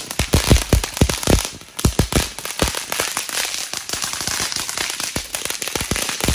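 Ground fountain firework spraying sparks with a steady hiss and rapid crackling pops throughout, and several heavier bangs in the first two seconds.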